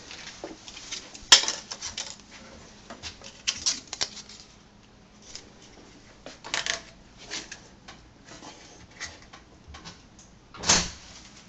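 Irregular clicks, knocks and short rattles, with a sharp one about a second in and a longer rattle near the end.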